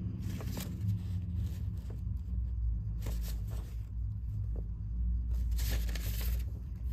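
A stiff paper sheet rustling and crackling in short bursts as it is handled, over a steady low rumble of a car engine running.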